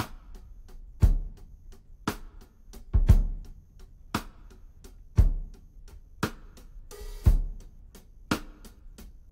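Background music with a steady drum-kit beat, a bass-drum hit about once a second with snare and cymbal strokes in between.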